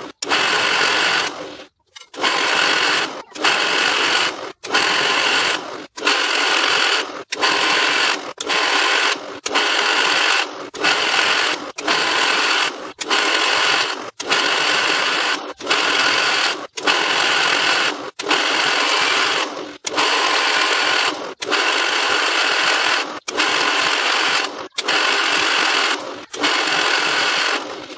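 Drill press drilling holes in a steel plate, a steady machine whir with cutting noise. The sound breaks off briefly about every second and a half and starts again.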